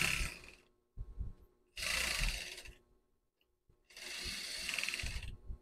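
Industrial single-needle lockstitch sewing machine stitching in short runs of about a second each, stopping between them, as the end of the seam is backstitched to lock it.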